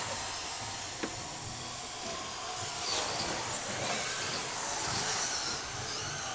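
Radio-control cars running on the track: high motor whines rising and falling over a steady hiss, with a single click about a second in.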